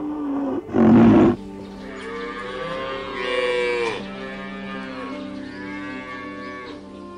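Cattle mooing: a long moo that rises and falls between about two and four seconds in, and a weaker drawn-out moo later, over steady background music. A loud short burst about a second in comes first.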